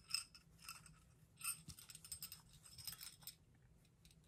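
Small metal jingle bell jingling faintly in short, soft tinkles as the ornament is turned in the hands, with light handling of fabric.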